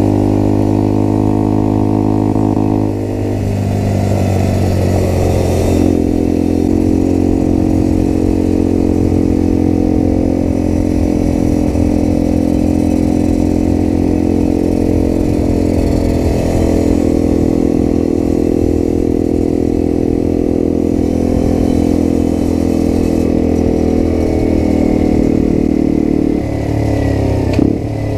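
Motrac M5R minibike's small single-cylinder engine running under way at a fairly steady speed, its note stepping to a new pitch a few times.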